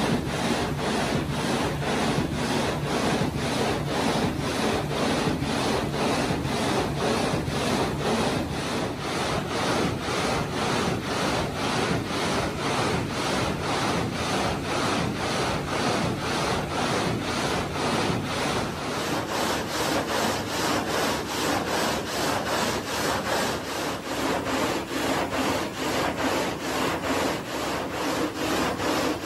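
Marble gang saw running: its frame of many steel blades goes back and forth through a marble block, with a steady rhythm of rasping strokes and cooling water splashing over the cut.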